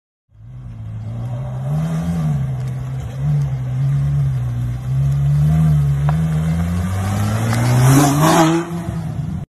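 Red Ferrari's engine running with the throttle blipped up and down at low revs as the car pulls away. The pitch climbs and the sound is loudest about eight seconds in as the car passes close by.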